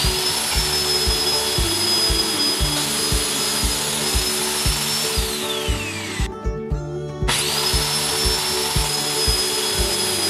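Corded circular saw running at full speed as it is pushed through aluminium sheet along a guide rail: a loud high whine over cutting noise. About five seconds in the motor is released and its pitch falls as the blade winds down, then it is started again about seven seconds in and quickly spins back up to speed.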